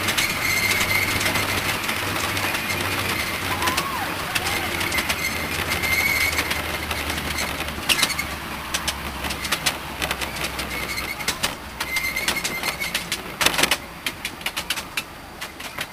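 Miniature railway train running along the track: a steady rolling rumble with a low hum, and a faint high whine that comes and goes. From about halfway on the wheels click sharply over rail joints and points, and the sound drops in level near the end.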